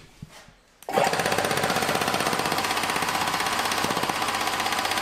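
Electric-motor-driven high-pressure piston air compressor starting up about a second in and then running steadily, with a fast, even pounding beat.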